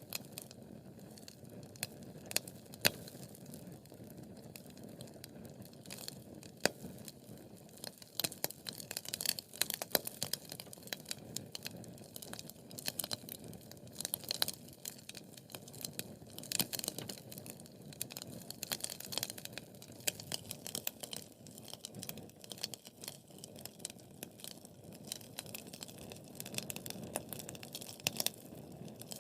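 Wood fire burning in a fireplace, crackling: a steady low hiss of burning logs with frequent sharp snaps and pops, two louder snaps about 3 and 7 seconds in.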